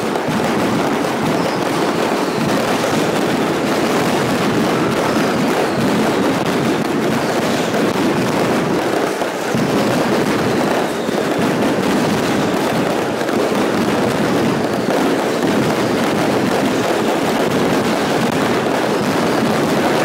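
Dense, unbroken barrage of firecracker explosions, as in a Valencian mascletà daytime pyrotechnic show, with a brief dip about nine seconds in.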